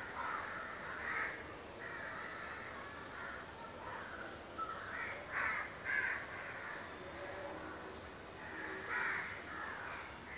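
Crows cawing again and again, harsh calls that are loudest a little past halfway and again near the end.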